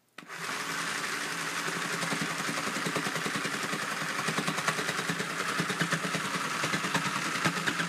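Sew Cool battery-powered toy sewing machine running: its small motor hums steadily while the threadless felting needle punches up and down in rapid ticking strokes as fabric is fed through. It starts almost at once.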